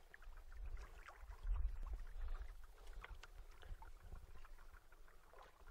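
Low rumble with faint scattered clicks and light water sounds around a small fishing boat, swelling briefly about a second and a half in.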